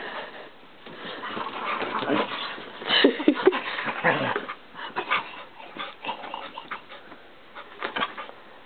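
A pet dog making short excited vocal sounds during rough play, about three seconds in and again scattered through, among quick scuffling and clicking noises.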